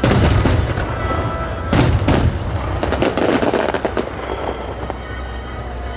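Aerial firework shells bursting in a star mine barrage: a loud boom at the start and another about two seconds in, then a dense crackling that thins out toward the end.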